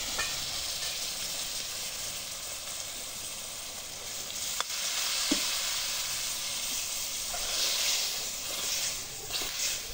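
Fried cauliflower and chicken masala sizzling and steaming in a hot aluminium pot as water is ladled in. A couple of light metal clicks come from the ladle against the pot about halfway through, and the sizzle swells slightly near the end.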